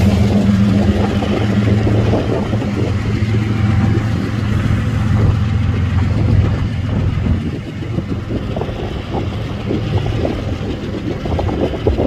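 Diesel locomotive engine running under load with a loud, steady low drone as a Kansas City Southern locomotive pulls a grain train away. The drone fades about seven seconds in, leaving a clatter of steel wheels knocking over the rails.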